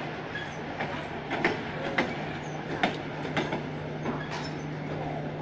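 Indian Railways passenger coaches rolling slowly along the track, their wheels giving irregular clacks over the rail joints above a steady rumble and a constant low hum.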